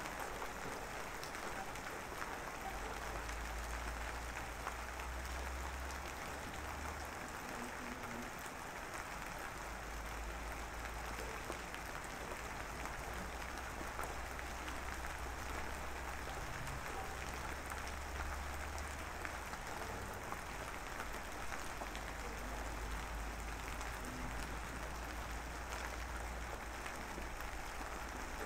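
Steady crackling hiss, like rain or static, with a low hum that comes and goes.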